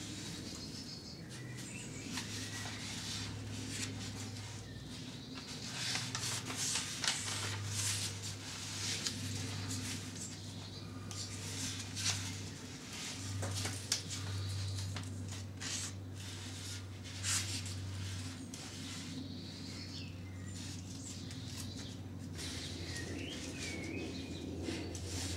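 Crackling and rustling as hands wrap and seal an apple tree's chip-bud graft, with several sharper crackles in the middle. Faint bird chirps now and then, over a steady low hum.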